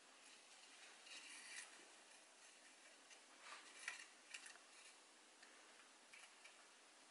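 Faint, light clicks and rustles of a hand picking up and handling crisp, dry meringue cookies, in two short clusters: about a second in and again near the middle.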